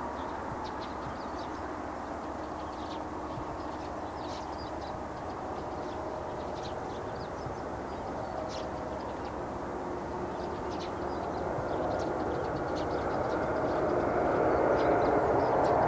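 Boeing 747-8 freighter on final approach with its four GEnx turbofans at approach power: a steady jet rumble and whine that grows gradually louder as the aircraft closes in, loudest near the end.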